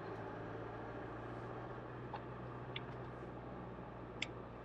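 Faint, steady hum of the Isuzu 4x4 running, heard from inside the cabin, with a few light clicks.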